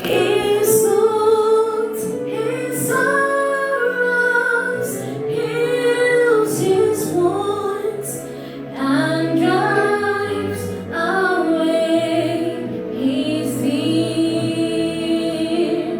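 Music: a woman singing a slow hymn melody in long held notes over sustained low accompaniment.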